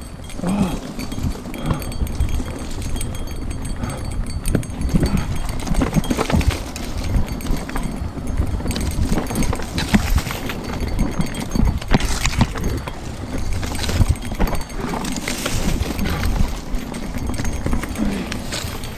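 Mountain bike riding fast down a rocky dirt singletrack: tyres crunching over loose stones, with the bike rattling and knocking irregularly on each impact. Wind rumbles on the microphone throughout.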